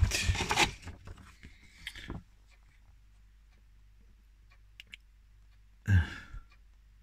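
Paper leaflets rustling as they are picked up and handled, loudest in the first second with a second rustle about two seconds in. A short murmur of voice about six seconds in.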